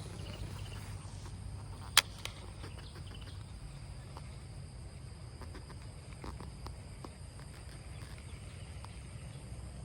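Outdoor ambience: a low rumble and a faint, steady high insect drone, with one sharp click about two seconds in, a smaller click just after, and scattered faint ticks.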